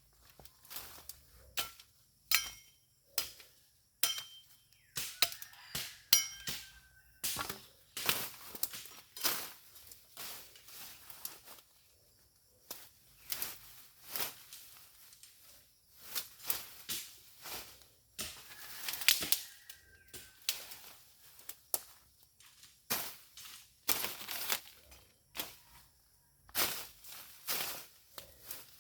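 Irregular cracks, chops and crunches of wood being cut and broken while gathering firewood, about one every second or so, with pauses; a few of the hits leave a short ringing tone.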